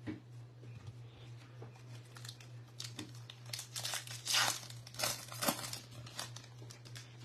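Foil wrapper of a Bowman baseball card pack crinkling and tearing as it is ripped open and the cards are slid out, loudest about four to five and a half seconds in.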